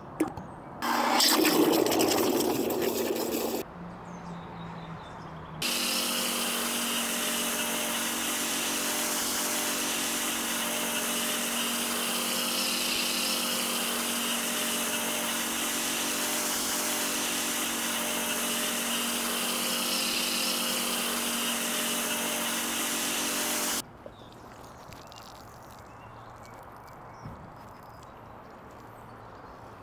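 Pressure washer running steadily, its motor hum under the hiss of a foam cannon spraying foam onto the car, for about eighteen seconds before cutting off suddenly. Near the start, a loud rush of water lasting about three seconds.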